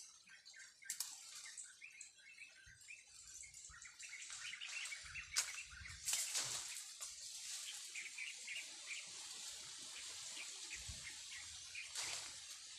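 Leaves and branches of a star apple tree rustling as fruit is picked by hand, with a few sharp twig snaps, while small birds chirp repeatedly.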